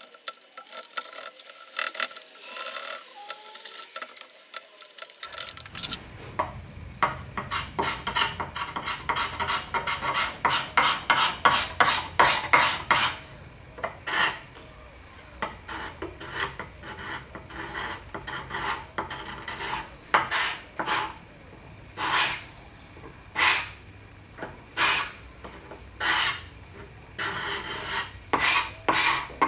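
A hand-held steel scraper scraping the wooden veneer top of a chest of drawers in short, repeated strokes. They start light and sparse, then come steadily at about two a second, slow for a while, and quicken again near the end.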